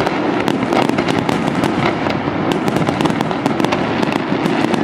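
Aerial fireworks display in a dense barrage: many shells bursting in quick succession, a continuous roll of bangs with sharp reports packed close together throughout.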